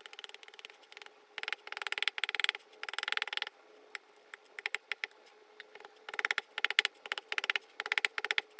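Chinese cleaver shaving chips off the white husk of a young coconut: two long runs of rapid, crisp scraping cuts, with scattered lighter scrapes in the pause between them.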